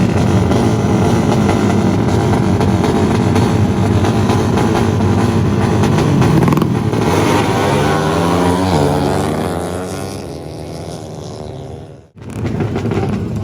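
A 250cc motorcycle with a Herex aftermarket exhaust running loud, then its engine note falls in pitch and fades away over about four seconds. Near the end the sound cuts out for a moment and the loud exhaust comes back.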